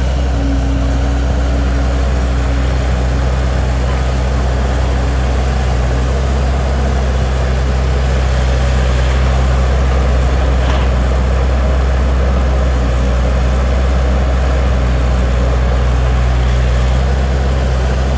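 Heavy diesel engine running at a steady speed, with a deep, even hum throughout.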